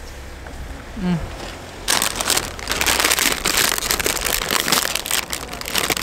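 Dense crinkling and crackling that starts abruptly about two seconds in and carries on, as of something papery or plastic being handled close by.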